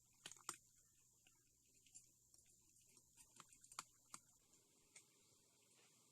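Near silence with faint, scattered sharp clicks and ticks, a small cluster about half a second in and a few more spread through the rest.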